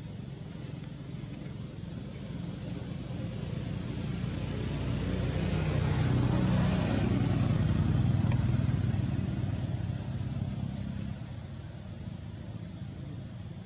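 A motor vehicle passing by: its engine hum swells to a peak about seven seconds in, then fades away.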